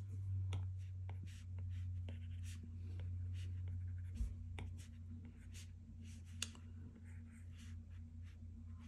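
Apple Pencil tip tapping and sliding on an iPad Pro's glass screen in short, irregular strokes, with a steady low hum underneath.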